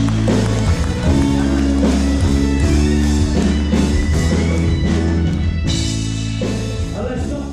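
Music with held chords over a steady bass, beginning to fade out near the end.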